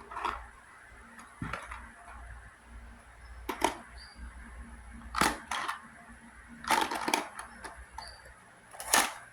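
Packaging being handled and opened by hand: a run of short, sharp clicks and crackles, irregularly spaced a second or two apart.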